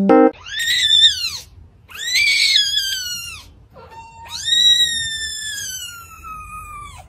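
A kitten crying out in three loud, high-pitched meows: two shorter arching ones, then a long drawn-out one that slowly falls in pitch and cuts off.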